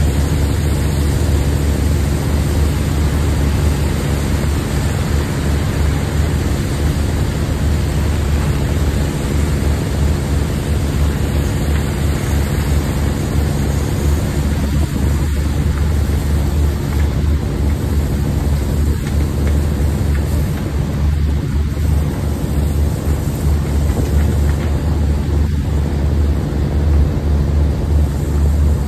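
Heavy diesel engine running steadily at constant speed, a deep hum with a broad hiss over it.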